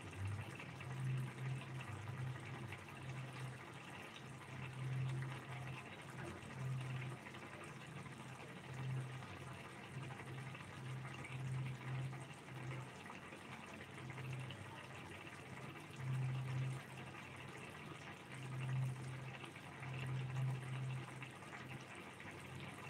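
Egg curry gravy simmering in a frying pan on a gas stove, bubbling irregularly over a steady hiss.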